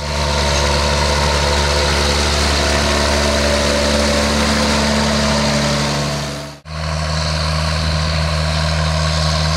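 John Deere 7810 tractor's six-cylinder diesel engine running steadily with a deep drone, broken by a sudden cut about two-thirds of the way through before the same engine sound picks up again.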